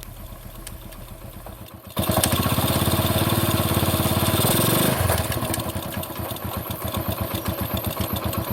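Motorcycle engine running with an even firing beat. It comes in suddenly about two seconds in and is loudest for about three seconds, then runs on somewhat quieter.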